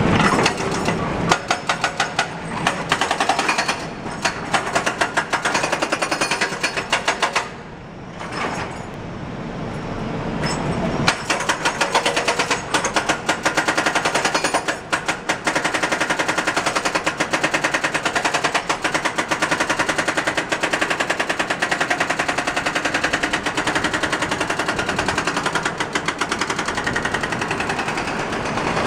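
Hydraulic breaker on an electric excavator hammering steel-ladle refractory in rapid, continuous strokes, easing off briefly about eight seconds in before picking up again.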